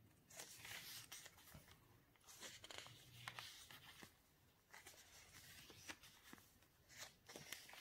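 Faint, irregular rustling and soft ticks of paper pages in a handmade junk journal being turned and handled by hand.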